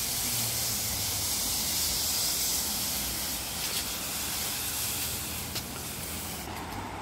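Push broom sweeping fallen lime leaves across stone paving slabs: a steady rustling, scratchy hiss of bristles and dry leaves, easing off near the end.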